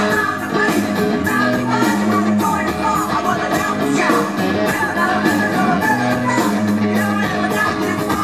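Live hard rock band playing loud: electric guitars through stacked amplifiers, a steady drum beat and a singing voice.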